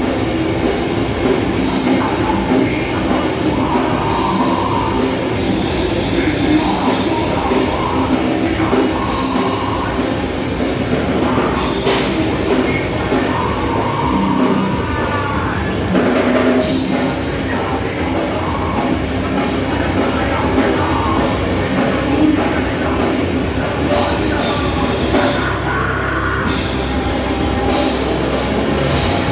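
Loud rock music with heavy, distorted guitar and a drum kit.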